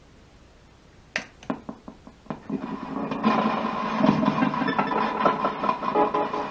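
A few sharp clicks about a second in, then a ghost box (spirit box) starts up: a loud, rapidly stuttering wash of radio static and broken sound fragments as it scans.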